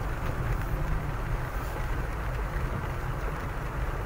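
Car driving slowly on a wet road, heard from inside the cabin: a steady low engine and tyre rumble.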